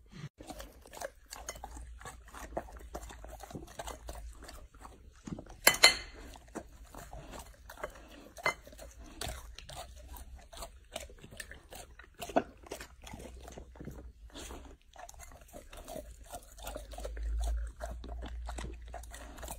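Golden retriever chewing and crunching raw cauliflower, then chewing strawberries: many short, irregular crunches, the loudest about six seconds in.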